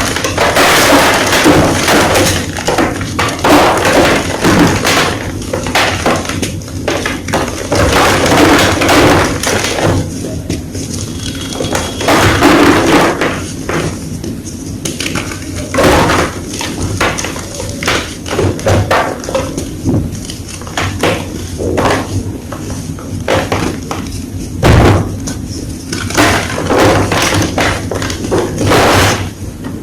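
Gym chalk blocks being crushed and crumbled: a continuous run of irregular crunches and crackles, with a few louder cracks.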